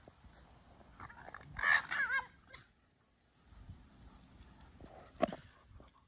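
Boston Terrier whining during play: a quick run of high, wavering cries about a second and a half in, then one short, lower vocal sound near the end.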